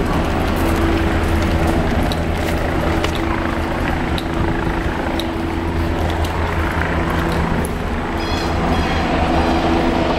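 A steady low engine drone under outdoor street noise, with scattered light clicks and a brief high chirp about eight seconds in.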